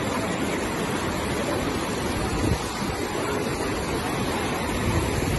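Torrent of floodwater rushing through a street between houses: a steady, even rush of fast-moving water.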